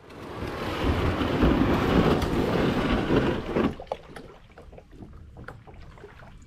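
Loud rushing wind noise on the microphone, which drops off suddenly about three and a half seconds in. After that come light splashes and water lapping around the kayak.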